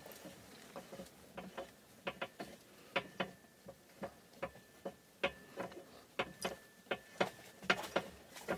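Light metallic clicks and ticks, irregular and a few a second, as a T-handle locking bolt is turned by hand and unscrewed from the steel frame of a hitch-mounted swing-away cargo carrier.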